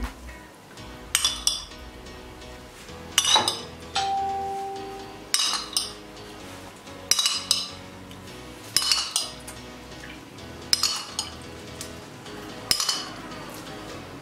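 A metal spoon clinking against cookware, about seven sharp knocks, several of them doubled, roughly every two seconds, over soft background music.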